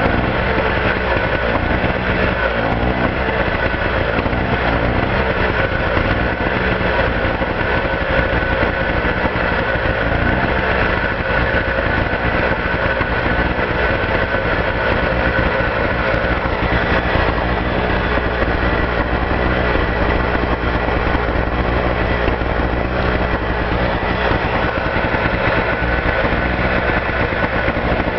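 Suzuki SX650R portable engine generator running steadily.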